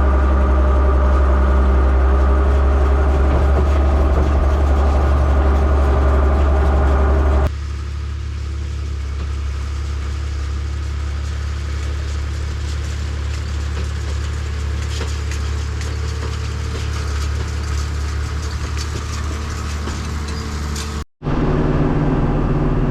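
Oliver 1755 tractor's engine running steadily under load, a loud low drone heard from inside the closed cab. About seven seconds in the sound changes abruptly to a quieter, hissier engine noise, and near the end it drops out briefly before another steady engine drone.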